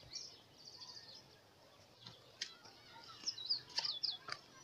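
Small birds chirping: a quick high trill about half a second in, then a few looping whistled calls in the second half, with a couple of sharp clicks among them.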